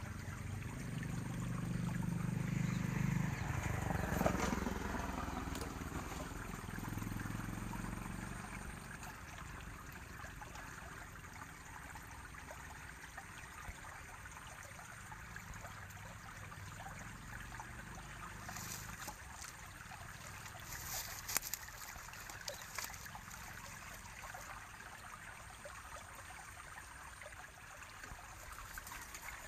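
Stream water trickling steadily where it flows out under a concrete culvert. A low rumble comes in over the first several seconds, and a few faint clicks sound later on.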